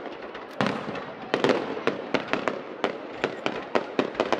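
Aerial fireworks display: shells bursting in a rapid, irregular string of sharp bangs and pops, several a second, the loudest about half a second and a second and a half in.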